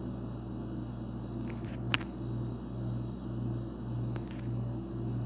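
A steady low hum that swells and dips about twice a second, with a single sharp click about two seconds in.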